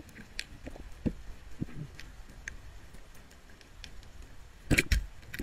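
Underwater on a reef: scattered sharp clicks and ticks, with a louder cluster of two or three knocks near the end.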